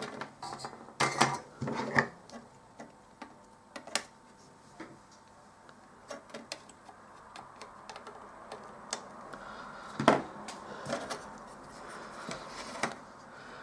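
Scattered light clicks and taps of small electronic parts and tools being handled on a workbench, with a louder knock about ten seconds in.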